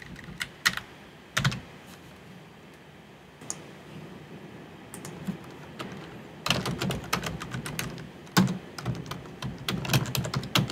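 Typing on a computer keyboard: a few scattered clicks at first, then a fast run of keystrokes over the last four seconds or so.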